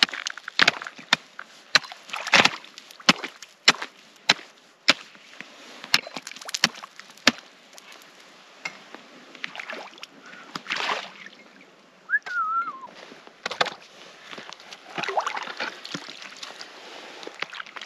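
Axe chopping through pond ice: a quick series of sharp blows, about two a second, for the first seven seconds or so, then fewer strikes and water sloshing as the ice gives way and a slab is worked loose. A short wavering whistle about twelve seconds in.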